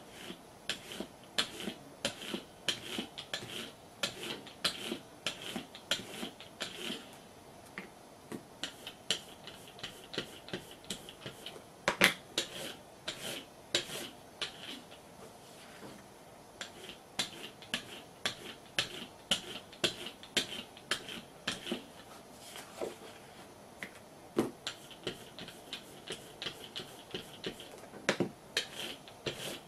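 Quick light taps and dabs of an inking tool on card over a stack of paper, in runs of several a second with short pauses and one louder knock partway through, as eggplant ink is worked over a blue base around the card's edges.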